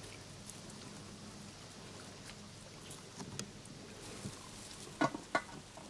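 Hand-picking blueberries into a metal bucket: faint scattered ticks and light rustling, then two sharper knocks close together about five seconds in, over a faint low hum.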